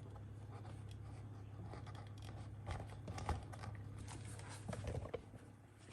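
Faint scraping and light handling clicks as mixed two-part adhesive is worked into the handle's mounting holes, over a steady low hum.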